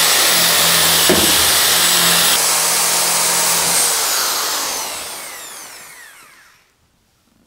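Electric drill with a wire wheel brush spinning at full speed, scouring rust off the sheet-metal door pillar. After about four seconds it is let go and spins down with a falling whine until it stops.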